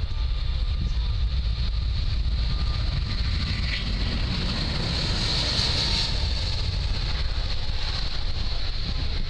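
Airbus A380's Rolls-Royce Trent 900 jet engines, a steady noise with a high whine that swells about five to six seconds in, over wind buffeting the microphone.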